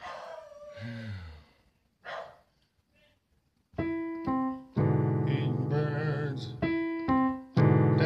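Electronic keyboard music: a few scattered short sounds and a low falling tone in the first two seconds, then loud sustained chords from about four seconds in, with a wavering high tone over them partway through.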